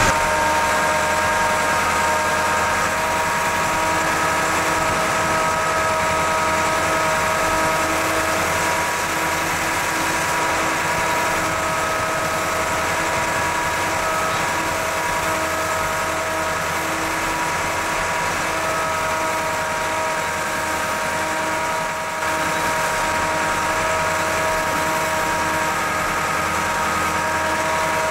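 McKeen motor car No. 22 running steadily as it rolls along the track, heard from inside the car: an even engine hum with a steady whine of several tones over it.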